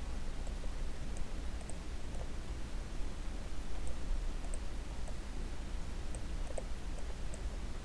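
A few scattered computer mouse clicks over a steady low electrical hum.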